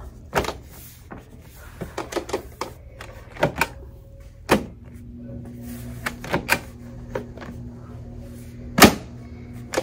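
Plastic clicks and knocks as the filters are pushed into the base of a Dyson Purifier Hot+Cool Formaldehyde and snapped into place, with the sharpest knock near the end as they lock.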